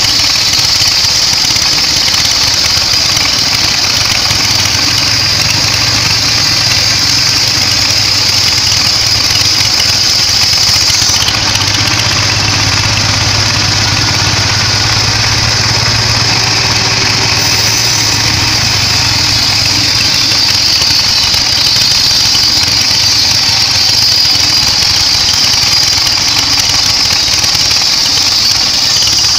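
Sawmill band saw running with a loud, steady mechanical drone and a high whine. A low hum grows stronger for several seconds in the middle, then eases back.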